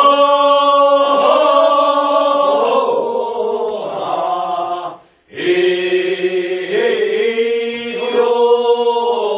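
Group of singers chanting the refrain of a Korean rice-paddy weeding song for the first weeding, the answer to a solo lead's verse. Two long drawn-out phrases, with a short break for breath about five seconds in.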